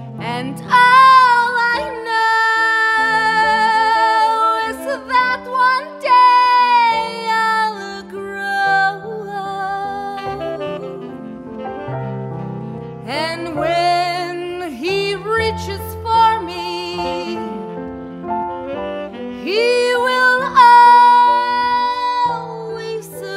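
A woman singing long held notes with strong vibrato in several phrases, over low instrumental accompaniment.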